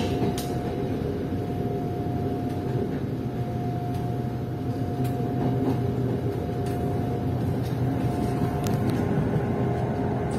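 SRT Red Line electric commuter train running between stations, heard from inside the carriage: a steady rumble with a steady whine that fades near the end.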